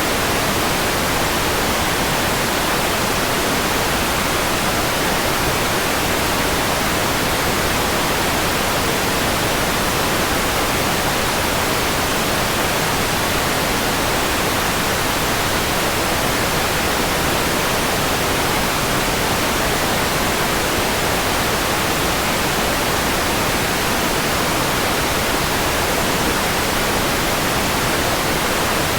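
Steady generated white noise: an even, unchanging hiss across the whole range.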